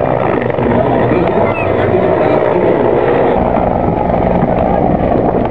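Bell 412 helicopter flying low overhead: its twin turboshaft engines and four-blade main rotor give a loud, steady chop and whine.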